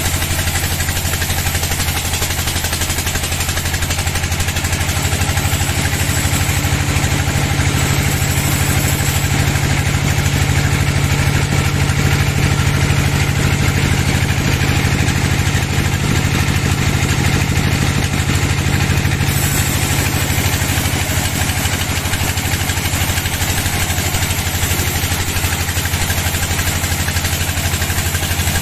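Sawmill band saw running steadily with a low hum while its blade rips lengthwise through a teak log, cutting it into a slab.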